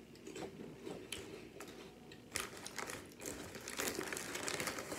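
Plastic snack bag crinkling and crackling under a hand, along with close crunching as crackers are chewed. The crinkling grows denser and louder in the second half.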